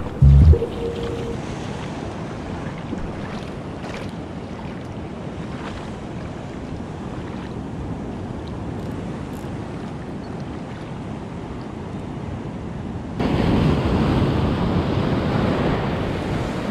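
Shallow sea water washing over a rocky reef flat, with wind buffeting the microphone. About thirteen seconds in, it jumps abruptly louder as foaming surf washes around the rocks.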